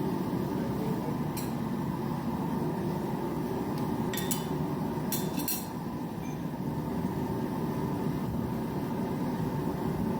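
Blacksmith's forge running with a steady low roar while the workpiece heats, with a few light metallic clinks about a second and a half in and again around four and five seconds in.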